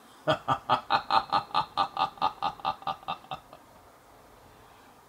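A person laughing in a long rhythmic run of about fourteen "ha" pulses, about four a second, fading away over some three seconds.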